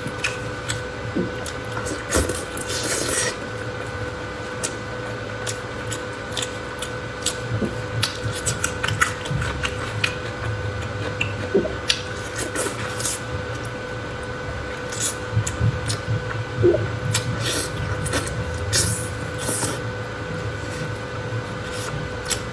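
Close-miked eating sounds: wet, squishy chewing with many irregular mouth clicks and crackles, over a faint steady background tone.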